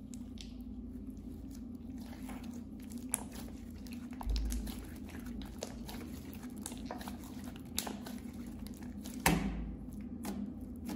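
Thick clear slime, mixed with makeup, being squeezed, stretched and pressed flat by hand: wet squishing with a run of sharp little clicks and pops, the loudest about nine seconds in.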